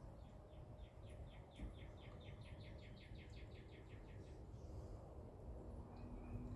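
Faint songbird trill: a rapid run of about two dozen repeated notes over roughly four seconds, swelling in the middle and then stopping, over low background noise.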